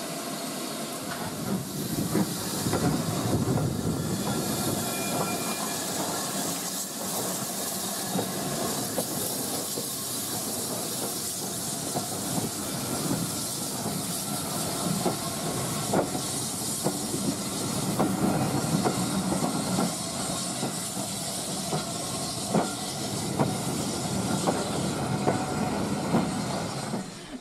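BR Standard Class 7 steam locomotive 70013 Oliver Cromwell departing slowly past with steam hissing, followed by its tender and coaches rolling by, the wheels clicking over the rail joints.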